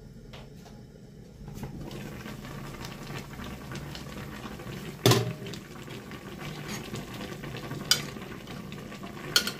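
Pot of paksiw na tulingan, fish in vinegar broth, bubbling and sizzling at a simmer. It gets louder once the glass lid comes off, about a second and a half in. There is a sharp clank about five seconds in, and a metal spoon clinks against the pot twice near the end.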